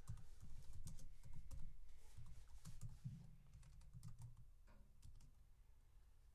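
Typing on a computer keyboard: a quick run of key clicks, thinning out towards the end, with low thuds underneath.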